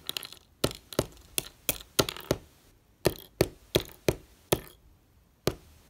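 A bassoon reed being hit repeatedly on a wooden tabletop: over a dozen sharp, uneven taps and knocks, two or three a second.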